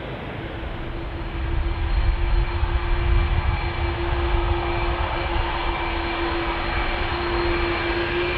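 Jet engines of an Airbus A380-800 running, a steady whine over a low rumble that swells about a second and a half in, with the whine edging up in pitch.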